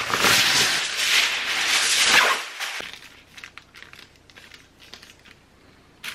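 Aluminum foil being drawn from its box and crumpled around a pie tin: loud crinkling for about two seconds, then only faint rustles and ticks.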